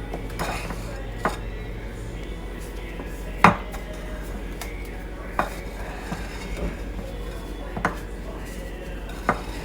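A kitchen utensil knocking and clinking against a mixing bowl: a handful of separate sharp taps, the loudest about three and a half seconds in.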